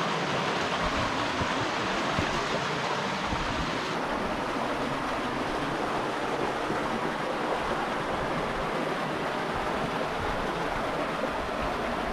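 Steady rushing of running creek water, with irregular low rumbles of wind on the microphone. The hiss turns duller about four seconds in.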